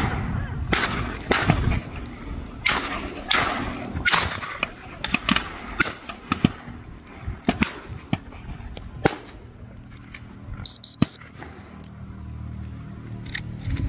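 Volley of distant shotgun shots from duck hunters, a dozen or so sharp reports with echo, thickest in the first five seconds and thinning out after.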